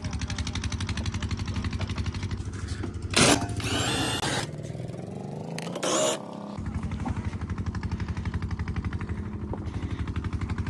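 Tractor engine idling with a steady, even chugging beat, with two brief louder noises partway through, about three and six seconds in.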